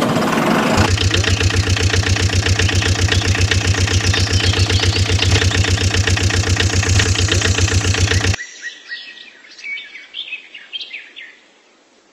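Truck engine starting and running with a rapid, even beat, cutting off sharply about eight seconds in. Birds chirp after it stops.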